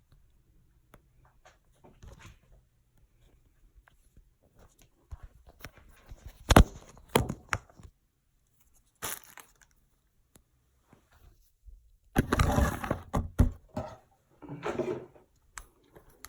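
Shower head kit parts and plastic packaging being handled and opened: scattered clicks and rustles, with a sharp click about six and a half seconds in and a longer crinkling rustle around twelve seconds in.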